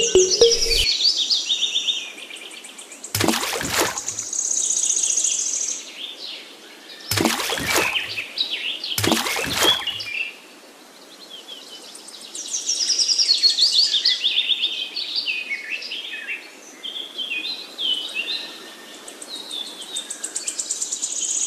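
Birds chirping and singing in quick runs of high notes, with three brief scraping noises in the first half.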